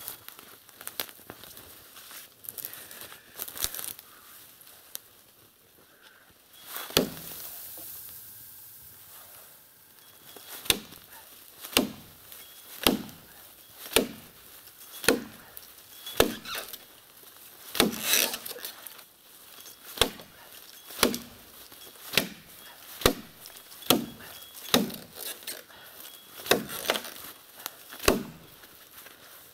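Axe chopping into the trunk of a dead standing tree. After about ten seconds of quieter rustling, sharp blows fall steadily at about one a second.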